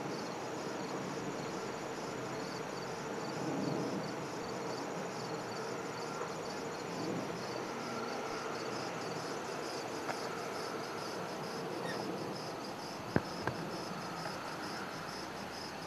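Crickets chirping in a steady pulsing rhythm over a low, steady hum of traffic, with two sharp clicks near the end.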